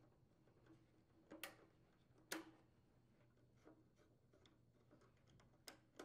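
A few faint clicks and taps of a screwdriver working the brass terminal screws of an electric water heater thermostat, with the wires being loosened and handled; the sharpest click comes a little over two seconds in.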